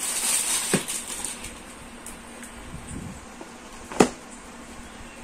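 Clear plastic packaging crinkling as a suit is pulled out of its packet, then quieter handling of cloth, with one sharp knock about four seconds in.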